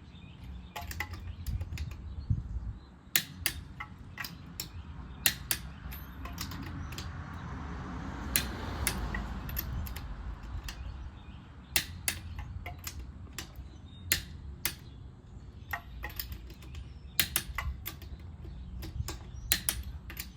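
Irregular sharp clicks and knocks of hand tools being worked and handled while the wheel's lug nuts are finished off, over a low steady rumble. A broad rush of noise swells and fades in the middle.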